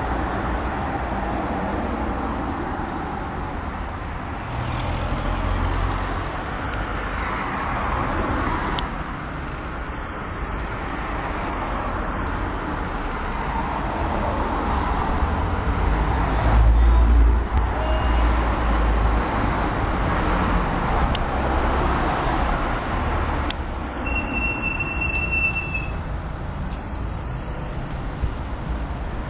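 Road traffic on a busy street: cars and vans passing one after another in slow swells, with the loudest and deepest pass about seventeen seconds in.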